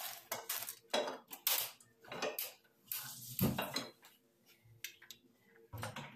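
Kitchenware being handled on a countertop: a cutting board set down and a knife and steel bowl moved, a string of separate knocks and clinks. Near the end a kitchen knife starts chopping coriander on the board.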